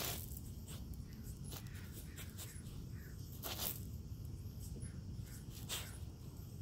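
Small pebbles clicking and crunching as a husky puppy noses and digs in gravel, a few sharp scrapes over a low steady rumble.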